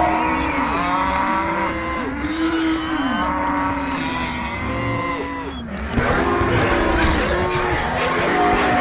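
Exaggerated anime stomach-growling sound effects: several overlapping long, low growls that bend up and down in pitch. They break off briefly near six seconds and start again abruptly.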